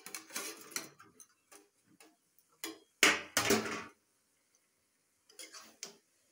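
Steel spatula knocking and scraping against a steel kadai in a run of short, uneven clinks, with the loudest clatter about three seconds in and a few more knocks near the end.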